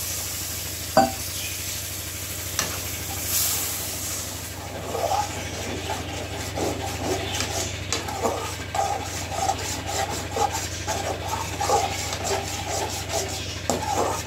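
Spoon stirring and scraping in a pan of frying curry masala, with sizzling; a sharp knock about a second in, then quick, repeated scraping strokes from about four seconds on.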